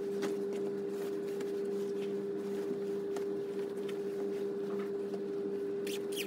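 A steady electrical hum with light scattered clicks and rustles.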